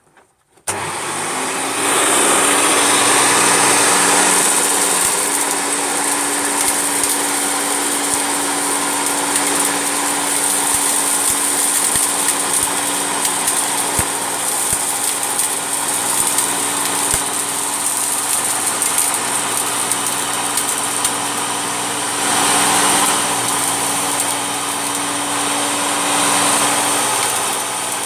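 Vacuum cleaner switching on and running steadily under load, with a constant motor hum and a strong high-pitched rush of air; the sound swells briefly about twenty-two seconds in.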